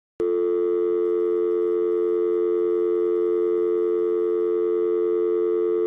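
Telephone dial tone: one steady, unbroken tone that cuts in suddenly just after the start.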